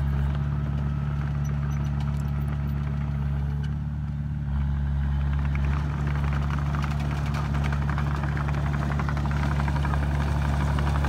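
Small crawler bulldozer's diesel engine running steadily, with a metallic clattering rattle that builds in the second half as the machine comes closer.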